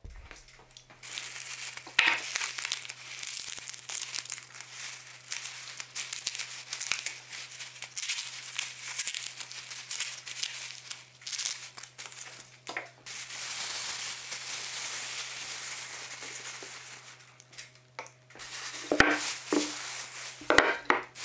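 Black plastic bin bag crinkling and rustling as hands fold and handle it, with a few sharp knocks near the end.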